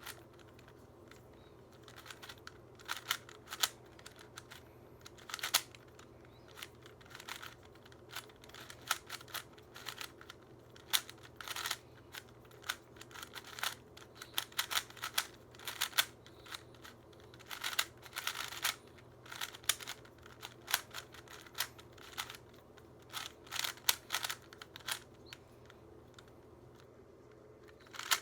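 A brand-new, loose Rubik's-brand 3x3 cube being turned quickly in a timed speedsolve: irregular runs of quick plastic clicks and clacks as the layers are turned, with brief pauses between runs.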